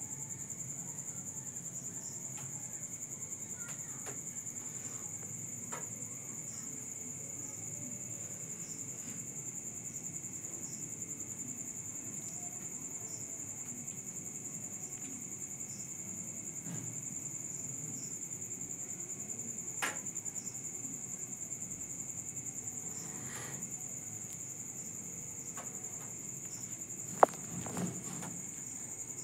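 Crickets chirring in a steady, unbroken high-pitched trill. A few soft clicks fall in it, and one sharp, loud click comes near the end.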